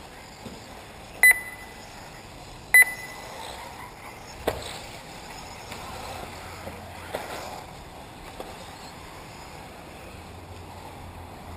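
Two short, loud, high-pitched electronic beeps about a second and a half apart, then a sharp knock about four and a half seconds in. Underneath, 1/8-scale electric off-road RC buggies run faintly and steadily.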